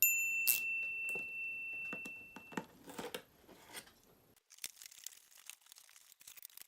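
A single high ringing tone that fades out over about two and a half seconds, over clicks and rustling as the plastic toy wand and its packaging are handled; there is a sharp click about half a second in.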